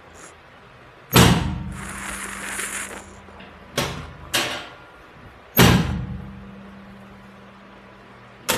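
Sharp knocks and thuds of a chiropractic adjustment on a treatment table, five in all. The two loudest, about a second in and past the five-second mark, each leave a brief low ring.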